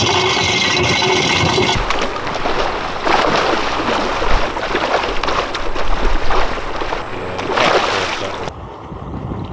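A dock-mounted fish feeder whirs for about two seconds as it throws out feed. Then many fish splash and churn at the pond surface, feeding on the pellets, in irregular loud splashes.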